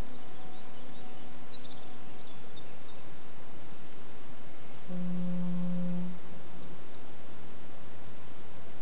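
A cow lows once, about five seconds in, for a little over a second, over a steady outdoor hiss with a few short bird chirps.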